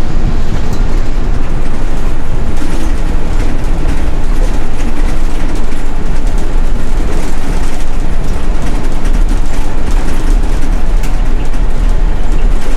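City bus driving, heard from inside the passenger cabin: a loud, steady low rumble of engine and road noise, with a few light clicks and rattles.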